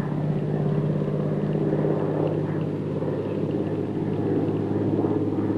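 An engine running steadily, a low drone that holds level throughout.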